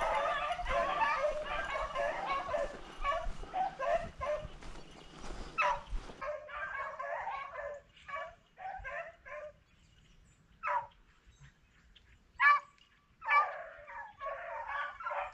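A pack of rabbit hounds baying and barking on a rabbit's track (running a race), many voices at once. About halfway the chorus thins to scattered single bays with a brief lull, then swells again near the end.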